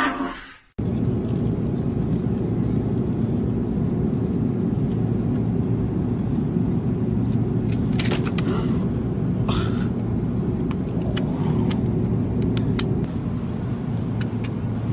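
Steady low drone of airliner cabin noise, from the engines and the air rushing past, with a couple of brief sharper sounds about eight and nine and a half seconds in.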